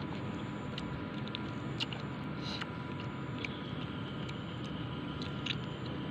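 A person chewing crisp fruit rujak of raw mango and crystal guava in spicy sauce: a few soft crunches and mouth clicks over a steady background hiss.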